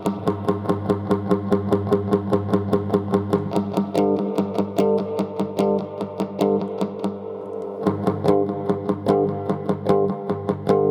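Electric guitar played through a guitar amplifier: a quick, even run of picked notes for about four seconds, then slower chords struck about once a second and left ringing.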